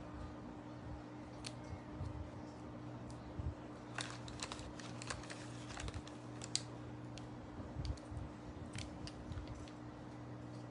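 Scattered light clicks and taps, a small cluster about four to five seconds in and a few more later, over a faint steady hum.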